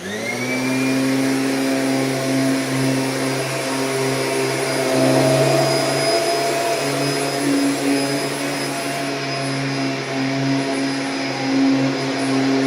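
Kirby G6 upright vacuum cleaner switching on, its motor rising in pitch as it spins up, then running steadily with a strong hum as it is worked over a mattress.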